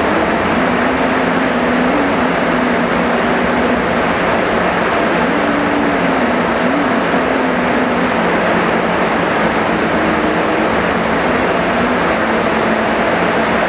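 Heavy rain falling in a steady, unbroken hiss, with a faint low hum that wavers in pitch.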